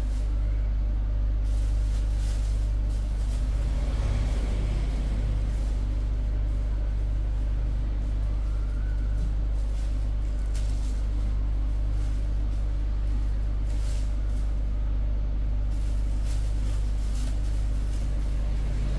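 A motor running steadily with a deep, even hum, with scattered clicks and knocks over it.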